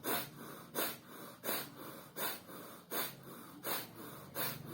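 Bhastrika pranayama (bellows breath): a man breathing forcefully in and out through one nostril in a fast, even rhythm, a loud breath stroke about every 0.7 seconds with a softer one between.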